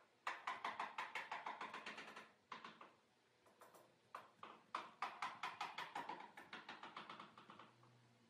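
Small screwdriver working the screws of a laptop screen bezel, making rapid clicking, about nine clicks a second, in two runs of a few seconds with a few single clicks between.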